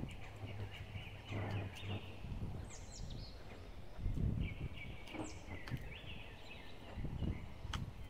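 Backyard songbirds calling over and over, a mix of buzzy notes and quick high down-slurred notes, with low rumbles underneath and a few sharp clicks.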